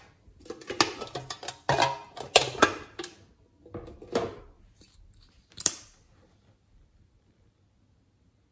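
A quick string of sharp clicks and knocks, with a few more spaced out after, from handling a tin makeup case and a plastic lip-gloss tube.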